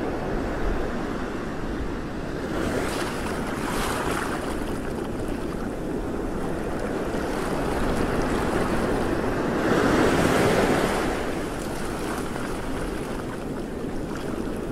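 Choppy sea waves sloshing and washing, with wind buffeting the microphone; the water swells louder twice, a few seconds in and again about two-thirds of the way through.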